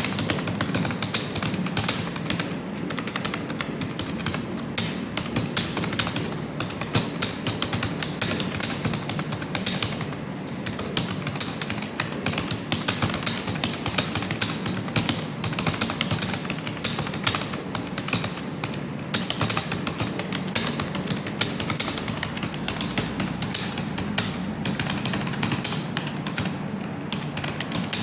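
Fast, continuous typing on a computer keyboard, many keystrokes a second without a break.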